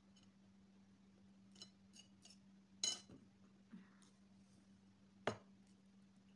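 Fingers gathering rice on a plate, with a few light clicks, then a sharp ringing clink about three seconds in and another sharp knock past five seconds. A faint steady hum runs underneath.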